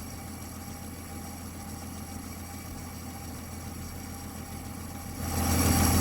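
The 1959 Dodge Coronet's engine running with a steady low hum, growing clearly louder about five seconds in.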